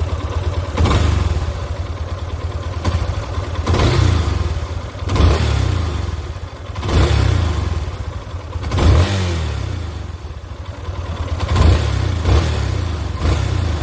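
Yamaha Fazer 250's fuel-injected single-cylinder engine, heard close to the engine, idling and revved by hand about seven times, each short rev rising and falling back to idle. The owner describes the engine as healthy, rebuilt and well tuned.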